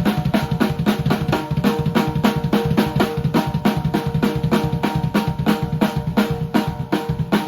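Drum kit played in a fast, steady beat of kick, snare and hi-hat, the hi-hat sounding muffled. A steady pitched tone runs underneath the drumming.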